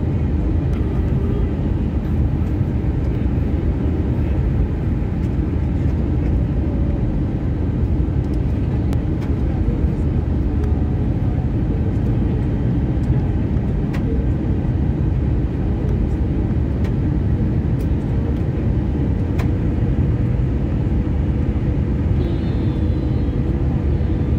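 Cabin noise of an Airbus A320-233 in flight, heard from a window seat beside the wing: a steady, even rush of airflow and IAE V2500 turbofan engine noise, heaviest in the low rumble.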